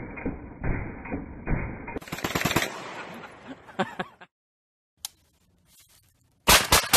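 A pistol fired in a string of quick shots. After a short near-silent gap, a rifle opens up near the end in rapid, evenly spaced fire, about five shots a second.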